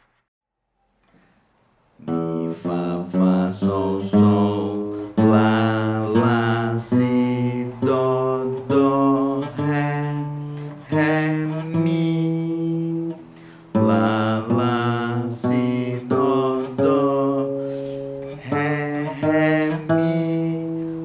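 Acoustic guitar playing single notes one after another, each note sounded separately, with a voice singing along on the pitches. Silent for about the first two seconds; the notes start after that, with a brief break a little past the middle.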